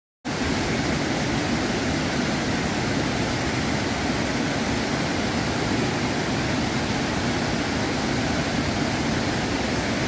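Steady rushing of Štrbački buk, a wide multi-tiered waterfall, pouring over its travertine steps close by.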